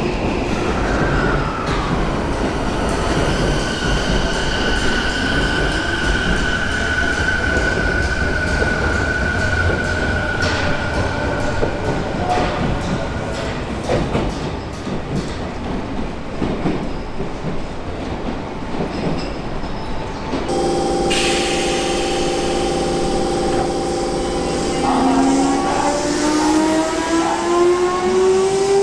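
Odakyu 4000-series electric train's Mitsubishi IGBT-VVVF inverter and six-pole induction motors whining as it pulls away, with wheel and rail noise. About 20 seconds in, after a cut, an Odakyu 1000-series train's Mitsubishi GTO-VVVF inverter gives several steady tones, then a motor whine that rises in pitch as the train accelerates.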